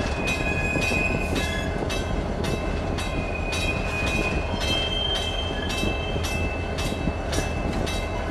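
Inside the cab of a moving EMD SD40-2 diesel-electric locomotive: the 16-cylinder two-stroke diesel runs with a steady low drone while the wheels click over rail joints about twice a second. Short high-pitched squeals come and go over the top.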